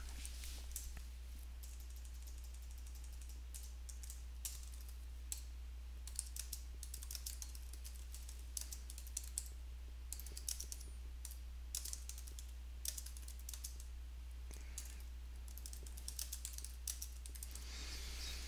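Typing on a computer keyboard: irregular runs of key clicks with short pauses between words, over a steady low electrical hum.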